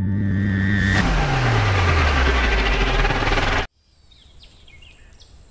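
Cinematic transition sound effect: a swelling rush of loud noise with a deep tone sliding downward underneath, cut off abruptly after about three and a half seconds. Faint birdsong follows.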